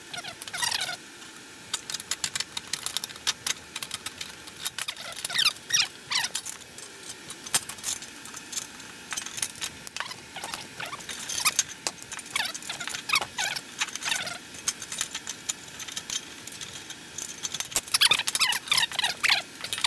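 Hand aviation snips cutting thin aluminium sheet in several runs of quick strokes, each stroke giving a short scrape that falls in pitch, with sharp clicks of the snips and sheet being handled between runs.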